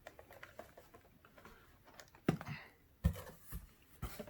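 Boxed toy sets being handled: a stream of small clicks and rustles, with several louder thumps from about halfway through as they are moved and set down.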